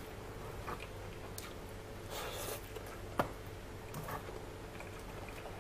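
Eating by hand: fingers squishing and mixing rice with pork curry on a foil-lined plate, with chewing, giving soft wet squishes and scattered light clicks. A sharp click about three seconds in, over a faint steady hum.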